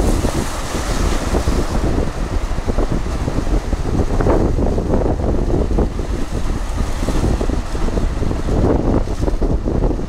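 Wind buffeting the microphone over sea waves breaking and washing against rocks: a continuous rough rumble with irregular surges.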